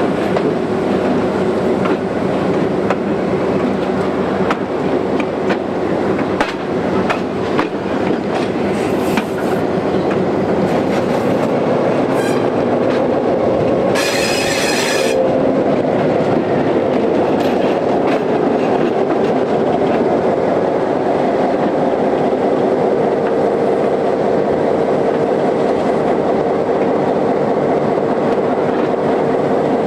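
EMD SW9 switcher locomotive on the move: first the clickety-clack of its wheels over the rail joints, heard from aboard, then its two-stroke diesel engine running steadily as it comes along the track, with a brief high squeal about halfway.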